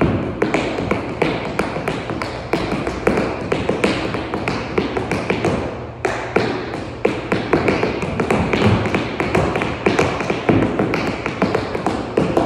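Tap shoes' metal taps striking the floor in rapid, rhythmic a cappella tap dance patterns, with no music. There is a brief lull about six seconds in before the taps resume.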